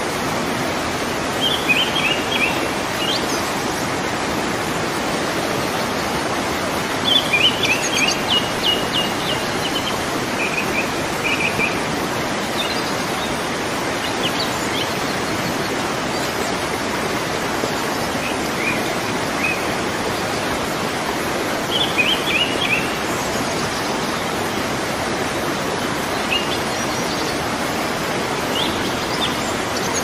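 Steady rush of a waterfall, with small birds chirping in short runs of quick high notes every few seconds.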